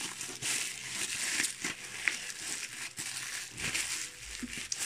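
Crinkly plastic gift wrapping being handled and unwrapped: an irregular run of rustles and crackles.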